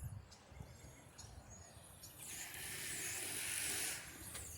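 Faint bird chirps over a low outdoor rumble, with a steady hiss that starts a little over two seconds in and cuts off sharply near the end.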